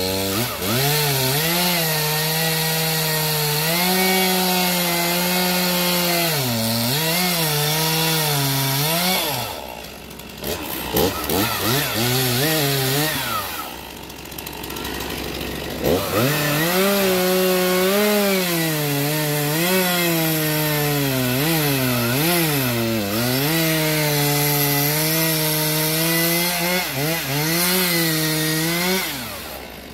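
Stihl MS 241 C two-stroke chainsaw at full throttle cross-cutting a cherry trunk with an unsharpened chain, its pitch sagging and recovering as the bar loads in the cut. About ten seconds in it drops to idle for several seconds and revs briefly, then goes back to full throttle for a second cut.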